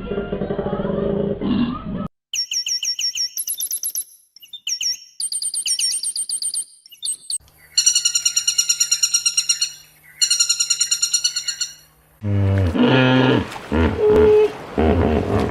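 A run of different animal calls, one after another: a low call at the start, then high, quick chirping bird calls, then a loud, fast trill with a low hum beneath it, then lower calls near the end.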